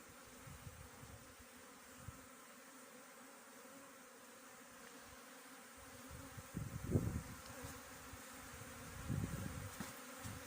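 Honeybees humming as they fly around the hives on an early-spring cleansing flight. A steady buzz is broken by two short low rumbles, the louder about two-thirds of the way in.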